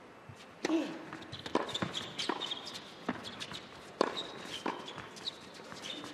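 Tennis rackets striking the ball: a serve just under a second in, then a fast exchange of volleys with a sharp pop roughly every three quarters of a second. Shoes squeak briefly on the indoor hard court between the hits.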